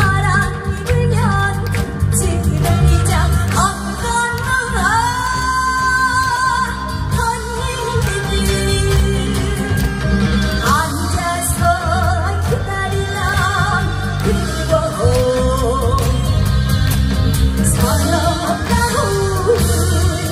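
A woman singing a Korean trot song over a band accompaniment with a steady bass beat, her voice wavering with vibrato on held notes.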